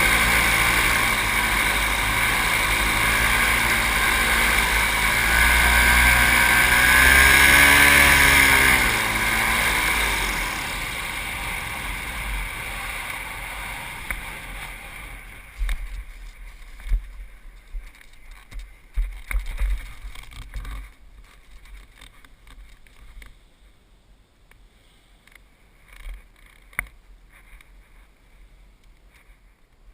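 Paramotor engine running, its pitch swelling up and back down about a third of the way in, then fading away over several seconds. After that, gusts of strong wind buffet the microphone in irregular rumbles.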